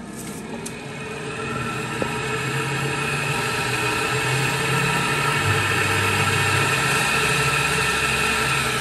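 Spin-dryer motor of an LG WP-1650ROT twin-tub washing machine running with the empty spin tub turning: a steady hum, getting louder over the first few seconds and then holding. It runs smoothly with no banging, the tub no longer wobbling after the repair.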